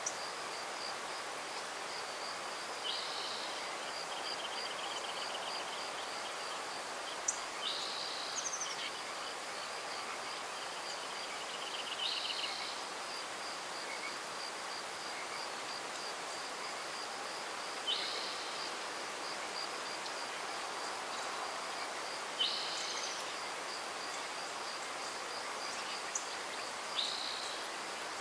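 Insects chirring in a steady, fast pulse throughout, with a songbird calling about every four to five seconds (six calls), some calls trailing into a short trill.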